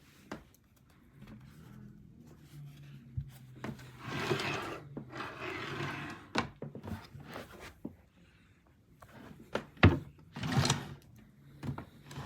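Wooden vanity desk being handled: rubbing and scraping of wood with several sharp knocks, the loudest knock a little before ten seconds in.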